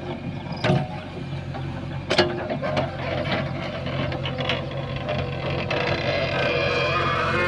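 JCB 3DX backhoe loader's diesel engine running steadily, with two sharp knocks in the first few seconds and a harsher, louder sound building over the last two seconds as the machine works.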